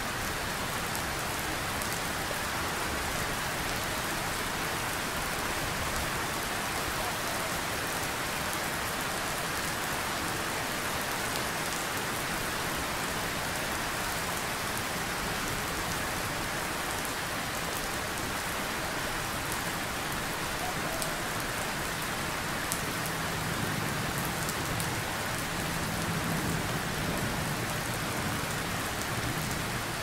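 Steady rain falling, with fine drop ticks throughout. A faint low rumble of distant thunder swells in the second half.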